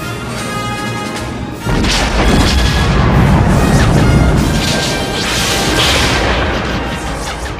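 Orchestral film score, cut off about two seconds in by a large explosion with a long, deep rumble. A second explosion bursts out about five and a half seconds in.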